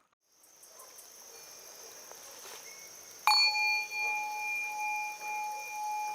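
A seven-metal Tibetan singing bowl is struck once about three seconds in and rings on with a clear, steady tone and higher overtones. Its loudness wavers in slow pulses about once a second. Before the strike there is a steady high-pitched drone.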